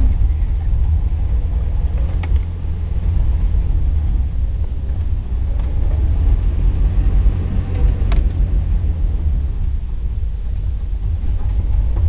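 Jeep Wrangler TJ driving along a dirt trail: a steady low rumble of engine and running gear, with a couple of faint knocks.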